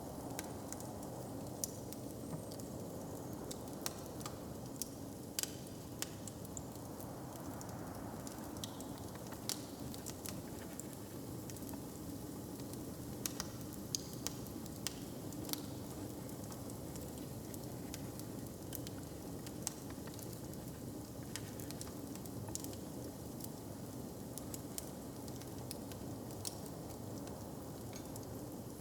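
Wood fire crackling, with irregular sharp pops over a steady low hush.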